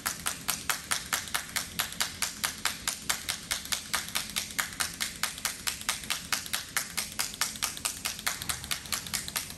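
Handheld training clapper clicking in a fast, even rhythm, about five clicks a second, as it is tapped against a horse's side.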